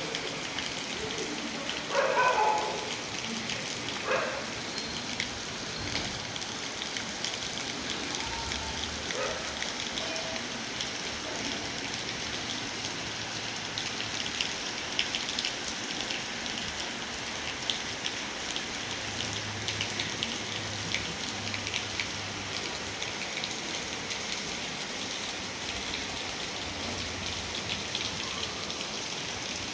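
Heavy rain falling, a steady hiss thick with the fine ticks of drops hitting surfaces. About two seconds in, a brief louder pitched sound rises over the rain, with a shorter one about two seconds later.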